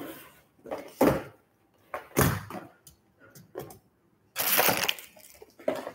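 Knocks and clatter from a plastic toy RC car being handled and set down on a desk. There are sharp knocks about one second and two seconds in, and a longer rattle about four and a half seconds in.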